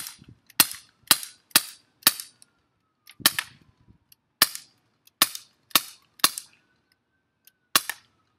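Glock 19 non-blowback CO2 BB pistol firing about eleven sharp pops in quick, uneven succession, the first five about half a second apart.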